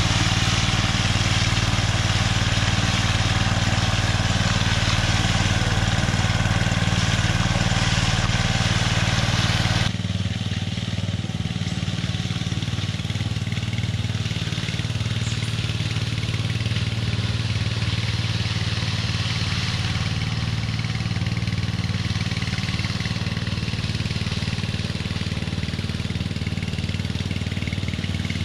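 Walk-behind gas power trowel running steadily with a float pan on the first pass over a fresh concrete slab, floating the surface. About ten seconds in the engine sound turns quieter and more distant.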